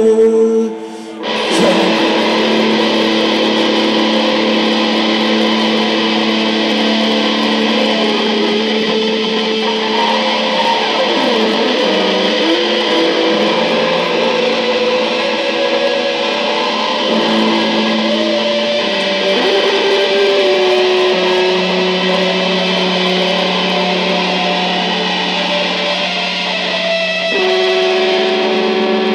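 Live rock band with electric guitars playing loud, dense, sustained chords that ring on over each other. The chord changes clearly near the end.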